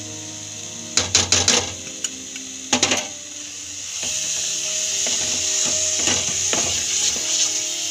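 A wooden spatula stirring a thick coconut and khoya mixture in a pan. It knocks and scrapes against the pan in a few quick clusters, then settles into a steady scraping hiss as it is stirred fast. Faint background music runs underneath.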